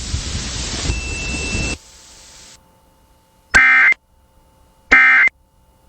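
A hiss for nearly two seconds, then quiet, then two short identical bursts of Emergency Alert System SAME data tones a little over a second apart: the end-of-message code that closes the alert broadcast.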